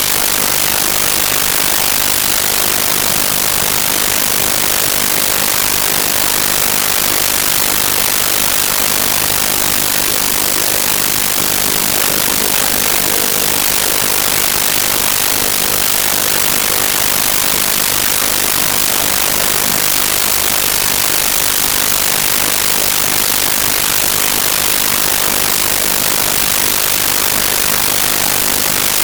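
Loud, steady hiss of static noise, strongest in the highs and unchanging throughout, from a faulty audio track.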